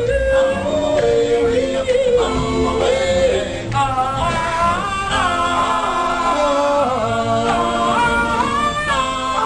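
Group of men singing a cappella in harmony, several voices holding and sliding between notes, with a higher voice coming in over the lower parts about four seconds in.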